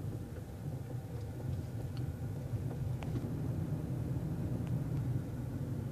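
Car cabin noise while driving: a steady low rumble from the engine and tyres on the road, with a few faint clicks.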